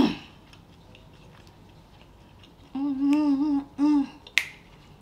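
A woman chewing a bite of sausage with wet mouth smacks, then humming a closed-mouth "mmm" twice, a long hum and a short one, about three seconds in. A single sharp lip smack follows the hums.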